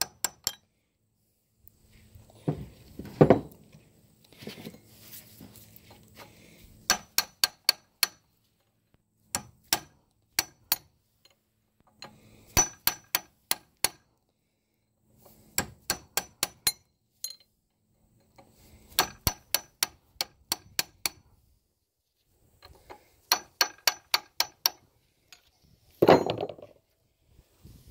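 Hammer blows on a metal punch set against the stuck gland nut of a backhoe hydraulic cylinder held in a vise, struck to drive the nut round. The ringing metal strikes come in quick runs of three to six a few seconds apart, with two duller, louder thumps, one about three seconds in and one near the end.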